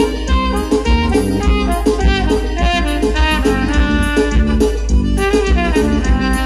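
Trumpet playing a melodic solo through a microphone over an amplified backing with bass and a steady beat.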